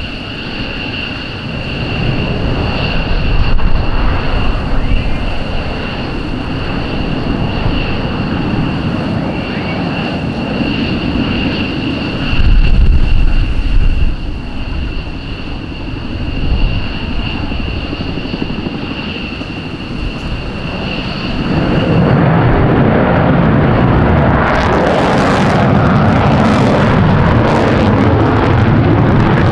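F-15J Eagle fighter jets' engines running: a steady high whine over a low rumble. About 22 seconds in, the whine gives way to a louder, broad jet noise that holds to the end.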